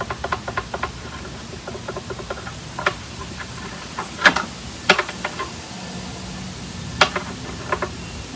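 Light clicks and taps of a tool on the frets of an electric guitar's neck while the frets are checked for level, with a few sharper clicks about four, five and seven seconds in, over a steady low hum.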